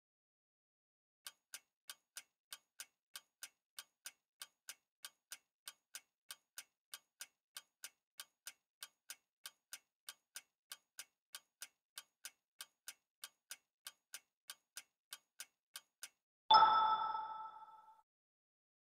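Quiz countdown-timer sound effect: clock-like ticks, about three a second, for some fifteen seconds, then a bright chime that rings out and fades near the end, signalling the correct answer.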